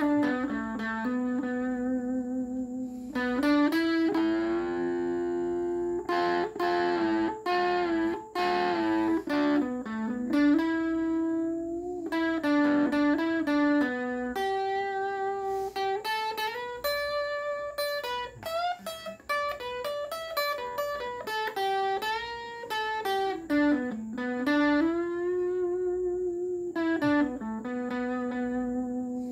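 Solo guitar playing a slow melody of single held notes, with pitch bends and slides between some of them.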